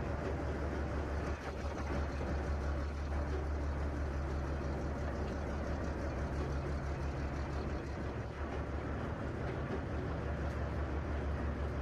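Small diesel shunting locomotive engine running steadily with a low even drone as the train moves slowly.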